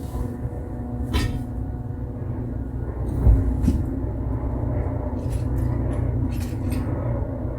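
Scattered clicks, knocks and light metal clinks of hand tools on bolts and brackets under a car's dashboard, with one heavier low thump about three seconds in, over a steady low hum.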